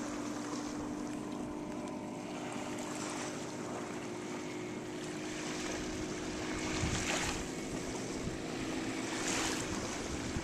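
Wind and small waves lapping at a lake shore, a steady rush of noise that swells louder twice, about seven and nine seconds in, over a faint steady hum.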